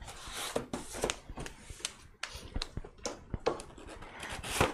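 A cardboard box being slid across a wooden tabletop and handled: scattered scrapes, taps and rustles, with a louder knock near the end.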